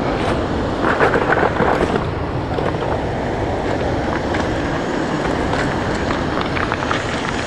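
Steady rush of water pouring over a spillway dam, with a few brief scuffs about one to two seconds in.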